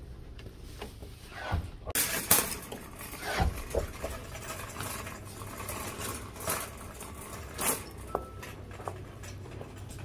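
Metal wire shopping cart rattling and clattering as it is pushed over a store floor, with irregular knocks and clicks, starting about two seconds in.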